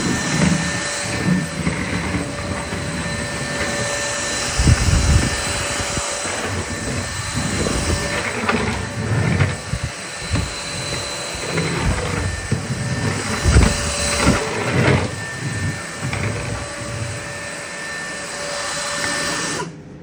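Numatic Hetty Quick cordless stick vacuum running: a steady high motor whine with rushing air as the floor head is pushed over tiles, broken by irregular low thuds. It cuts off abruptly near the end.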